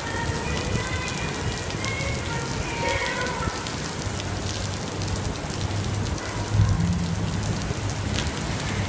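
Heavy rain pouring steadily, with a dense patter of drops striking a surface.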